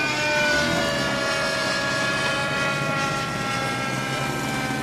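Engine and propeller of a Diabolo radio-controlled aerobatic model airplane running as it rolls and taxis on the ground, its pitch slowly falling as the engine slows.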